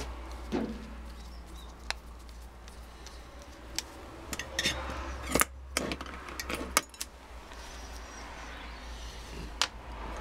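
Metal parts of a Bosch starter motor clicking and knocking against each other as the solenoid is fitted back onto the motor by hand, its plunger hooking over the pinion fork. Scattered sharp clicks and light knocks, some rustling in the middle, over a steady low hum.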